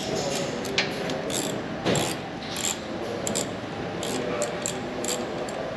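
Hand ratchet driver clicking in short irregular runs as a bolt is turned out, with small clinks of metal tools and parts.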